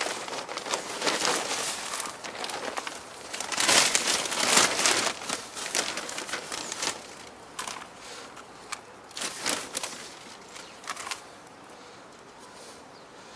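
A plastic potting-compost bag crinkling and rustling as it is handled, loudest about four seconds in, then a few short rustles that die away near the end.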